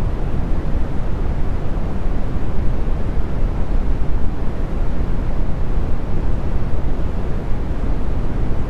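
Brown noise: a steady, deep, even rumble with its energy mostly in the low end and little hiss.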